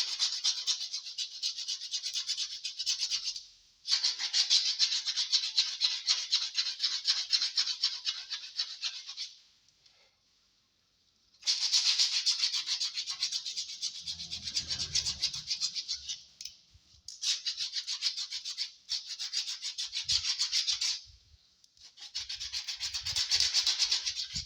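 Hand sanding of a speaker box with a used sheet of metal-grade sandpaper: quick back-and-forth rasping strokes in several bouts, with short pauses and a longer stop about ten seconds in.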